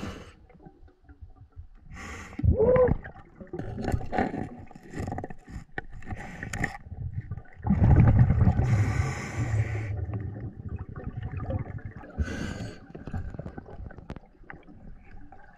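A diver's breathing and bubbling, muffled underwater, in uneven surges. The longest and loudest comes about eight seconds in. Scattered small clicks and knocks run through it.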